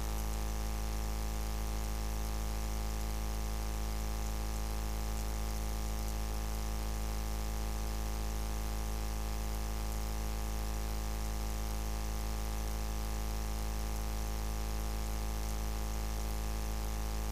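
Steady electrical hum and buzz in the audio feed, a low hum with a stack of even overtones that does not change at all.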